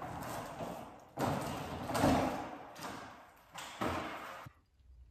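Thin masonite hardboard panels knocking and scraping against each other and the floor as they are gathered up, a few clattering knocks about a second apart. The sound cuts off suddenly near the end.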